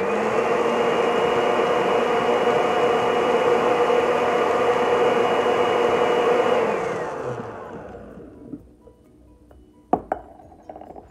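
Countertop blender motor spinning up with a rising whine and running steadily for about six seconds while it purées thick ají amarillo sauce, then winding down with a falling whine as it is switched off. A single sharp click follows near the end.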